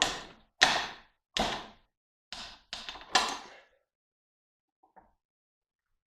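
About six hammer blows on metal in quick succession, each ringing briefly. They are driving the bearing and seals out of a cast aluminium electric-motor end bell.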